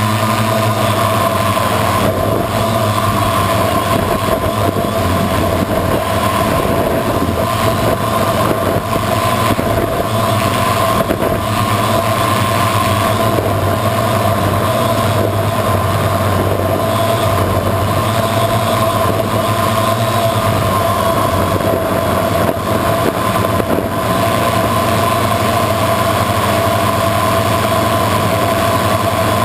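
A multirotor drone's electric motors and propellers whining steadily in flight, heard up close through its onboard camera: an even high whine over a low hum.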